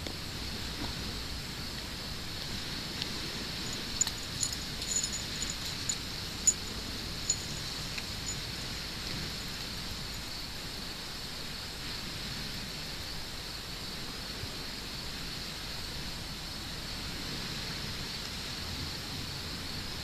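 A steady, high-pitched outdoor chorus of insects, with a scatter of sharp clicks and faint high chirps about four to seven seconds in.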